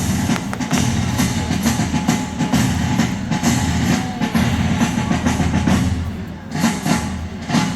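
Loud music with drums accompanying a fireworks show, with the sharp bangs and crackles of fireworks bursting over it; it eases briefly about six seconds in.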